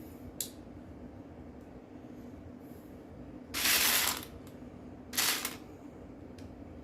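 Loose plastic Lego pieces rattling and clattering as a hand rummages through them, in two loud bursts about a second and a half apart, with a faint click near the start. A steady low hum runs underneath.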